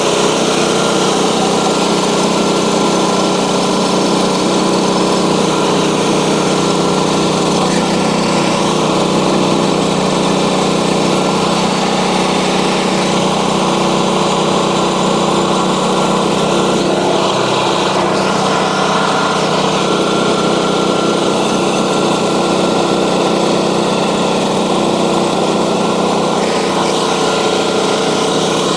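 Small engine of a portable bandsaw mill running steadily under load while the band blade cuts through a log.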